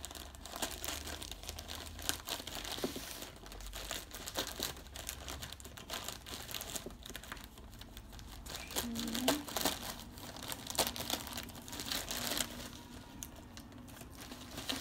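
Crinkling and rustling of plastic packaging and bubble wrap, handled by hand as a parcel of books is unpacked. The crackles come irregularly and without a break.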